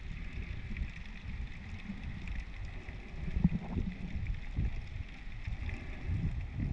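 Muffled underwater noise: an uneven low rumble of water moving around the camera, swelling now and then, with a faint hiss and scattered crackling ticks above it.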